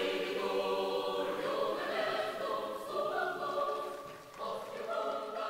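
A choir singing slow, sustained chords that move to a new pitch every second or so, dipping briefly about four seconds in before going on.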